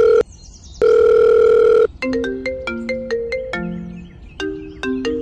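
Two steady, single-pitch electronic phone tones of about a second each, like a calling or dial tone. About two seconds in, a ringtone melody of quick, short, decaying notes starts.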